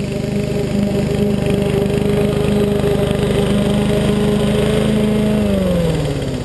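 A Rover OHV 910 196 cc single-cylinder lawnmower engine runs steadily at fixed throttle, getting louder as the mower comes near. About five and a half seconds in, its pitch falls and it winds down as the engine is shut off.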